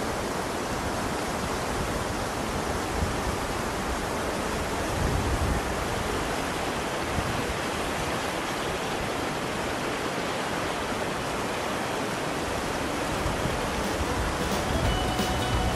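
Steady rushing of whitewater rapids, an even roar of moving river water with no let-up.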